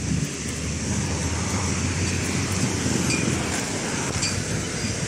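Road traffic at an intersection: cars driving past with a steady rush of tyre and engine noise, one car passing close by near the end.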